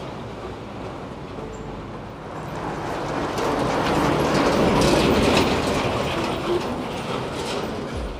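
A heavy vehicle passing, growing louder to a peak about halfway through and then fading, with a run of rattling clicks on top.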